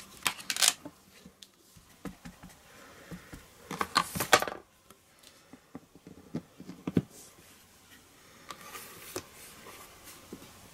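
Light plastic clicks and taps from a hinged stamp-positioning tool and a clear photopolymer stamp as the stamp is placed, pressed and lifted on cardstock. There are a few clicks at the start, a cluster about four seconds in and a single tap near seven seconds.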